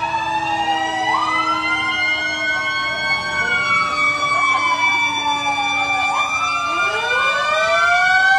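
Several emergency-vehicle sirens wailing at once, their pitches sweeping slowly down and back up out of step with one another.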